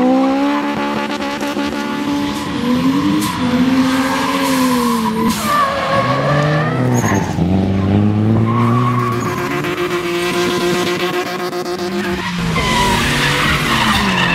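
Drift car's engine revving up and down repeatedly, with tyres squealing as it slides.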